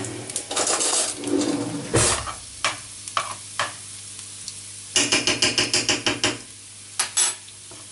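Chopped garlic sizzling in hot oil in a non-stick frying pan, stirred with a metal spoon. A single knock comes about two seconds in, and about five seconds in the spoon makes a quick run of scraping strokes against the pan, roughly nine a second, for over a second.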